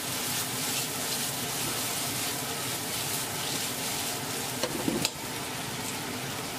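Chicken pieces and green peppers sizzling in a hot iron wok as they are stir-fried and tossed with a metal ladle, with a few clicks of the ladle against the wok about five seconds in. The sizzle goes a little quieter after that.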